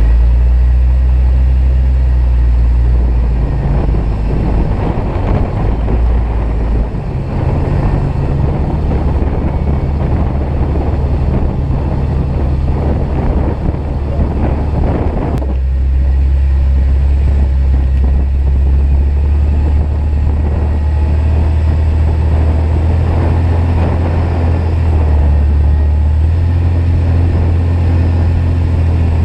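Off-road vehicle's engine running at low speed while crawling a rough wooded dirt trail, its low hum shifting pitch up and down several times as the throttle changes. A rough rumbling noise rides over it for the first half and drops away suddenly about halfway through.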